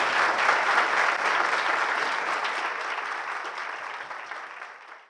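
Audience applauding, the clapping fading away steadily and cutting off at the end.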